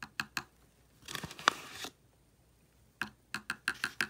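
Metal spoon tapping and scraping against a clear plastic tub as powdered pearl pigment is spooned onto mica powder: a few light clicks, a short scrape with a brief squeak about a second and a half in, then a quick run of taps near the end.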